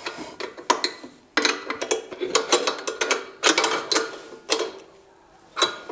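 Metal spanner tightening the footrest mounting nut on a Royal Enfield Bullet 350: a run of irregular metallic clicks and clinks as the spanner is turned and reset on the nut, with a short pause near the end.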